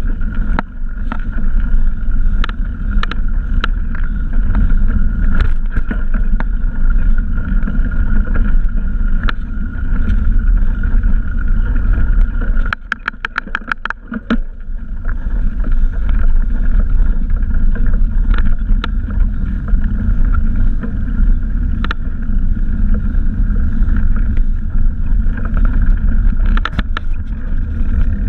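Mountain bike riding over a dirt trail: a steady low rumble of tyres and wind on the microphone, with scattered sharp knocks from bumps and roots. About halfway through, the rumble drops for a second or two and a quick run of even ticks sounds.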